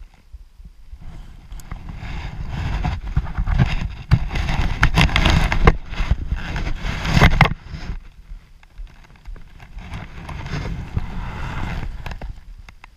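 Handling noise: a jacket rustling and bumping against a chest-worn camera, in two long stretches with sharp knocks through the first.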